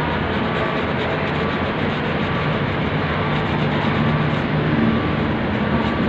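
A small handheld rotary tool with a sanding drum runs steadily against a steel rail, grinding off the rust and grime.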